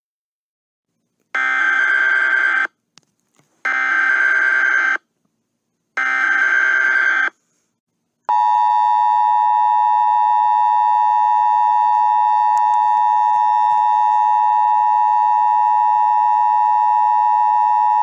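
Emergency Alert System signal: three loud, buzzy digital data bursts of just over a second each, then the long steady two-tone attention signal held for about ten seconds.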